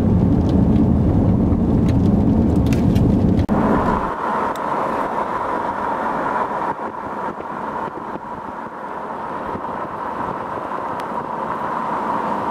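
Strong gusty wind rumbling against a car driving through a storm's inflow jet, with scattered light ticks. About three and a half seconds in it changes abruptly to steadier, quieter road noise inside the moving car with a steady hum.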